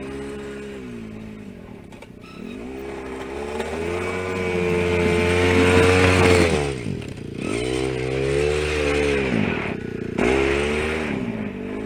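A vehicle engine repeatedly revving up and easing back down, about four rises and falls, with the longest and loudest climb around the middle.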